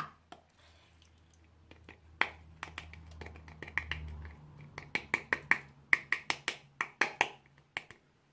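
Crunchy slime being pressed and squeezed, giving a quick irregular run of sharp crackling pops that starts about two seconds in and stops near the end. A faint low hum lies underneath.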